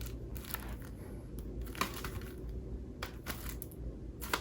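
A CD package being handled and opened by hand: faint crinkling and a few small clicks of the packaging.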